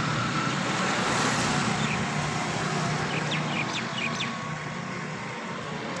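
An engine running steadily over an even background hiss, with a few short high chirps a little after the middle.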